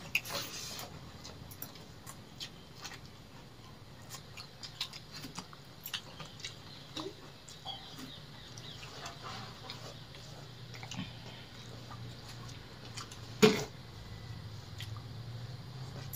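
People eating rice with their hands: close chewing and mouth sounds, with fingers mixing and scooping rice on steel plates giving many small scattered clicks and smacks over a low steady hum. One sharp knock about thirteen seconds in is the loudest sound.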